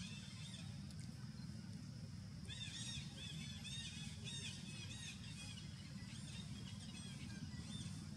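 A run of short, high, arched chirping calls, about three a second, starting a few seconds in and fading out, over a steady low background rumble.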